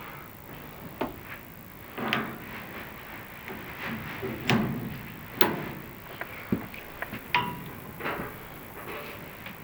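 Irregular knocks, clicks and scraping as an inspection camera and its cable are fed down inside a dryer vent duct, with a few sharper knocks about halfway through and again a little later.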